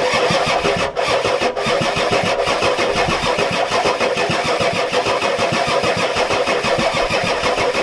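1993 Ford F-250's 7.3L IDI V8 diesel cranking on the starter without catching, kicking in abruptly with a fast, even chugging. It won't fire: the owner suspects a weak injection pump that isn't getting fuel to the brand-new injectors.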